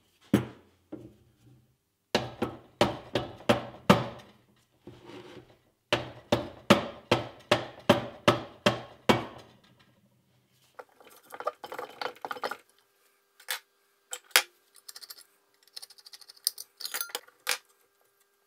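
A mallet striking the metal casing of an electric motor in two runs of quick, even blows, about three a second. After that come rapid light clicking and scattered metal clinks as parts of the motor are handled.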